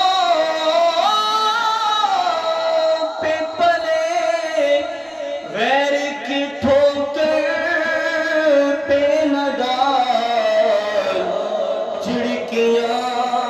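A voice singing a naat (Urdu devotional poem in praise of the Prophet) in long, held, ornamented notes that glide up and down.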